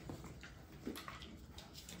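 Bullmastiff puppies' paws and claws pattering and clicking faintly on a hard concrete floor as they scamper and tussle, in scattered light taps.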